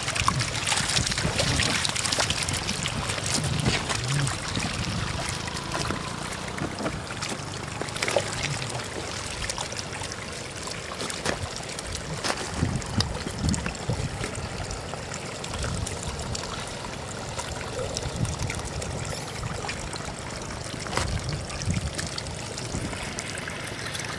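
Shallow floodwater trickling over gravel, with scattered splashes and slaps as stranded catfish flop in the puddle and are snatched up by hand.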